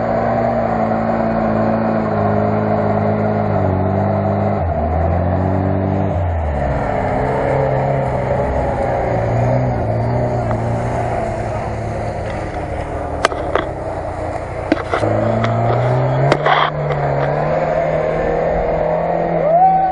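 Lada Niva engines pulling up muddy slopes, the engine note rising and falling with the throttle and changing between shots. Several sharp knocks and clicks come in the second half.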